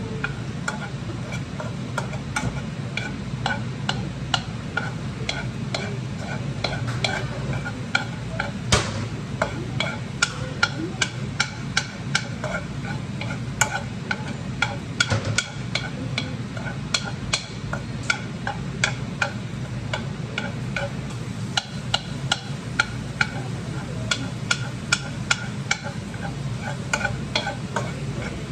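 Food being stirred in a frying pan with a utensil that clicks and taps against the pan many times, irregularly, with light frying over a steady low hum.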